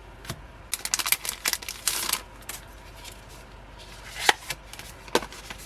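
Paper and plastic album inserts being handled: a quick run of rustles and crinkles in the first couple of seconds, then two sharp taps later on.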